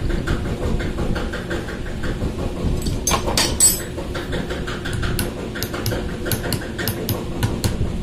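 Steady hum of running machinery under a run of short clicks and knocks of tools on metal, with a louder clatter about three seconds in.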